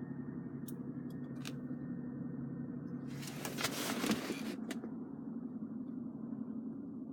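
Jaguar XJ Sovereign's 4.0-litre straight-six engine idling with a steady low hum. A brief rushing noise swells about three seconds in, and there are a few light clicks near the start.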